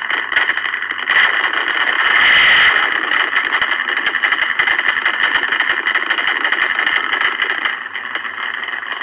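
Simulated engine sound from the scale RC truck, idling with a rough, continuous rumble. It is louder for a stretch from about one second in, and drops a little near the end.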